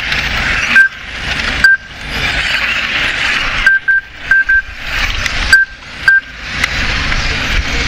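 1/10-scale electric touring cars racing, a steady rushing whir, broken by about eight short, high electronic beeps from the lap-timing system. The beeps come singly and in quick pairs as cars cross the line.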